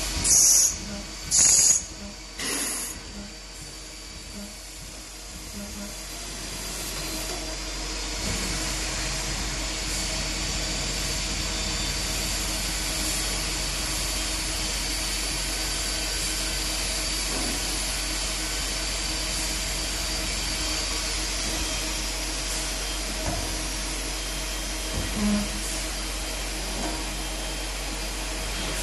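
CNC lathe running with a steady machine hum and a high whine. Near the start come three short, loud hissing bursts about a second apart.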